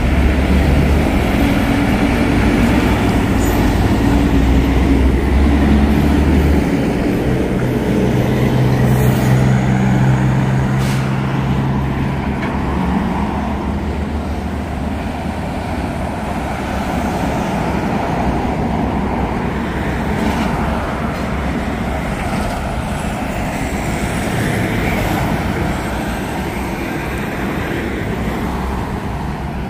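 Semi tractor-trailers driving past on a road: diesel engine drone and tyre noise, loudest through the first dozen seconds, then steady traffic noise.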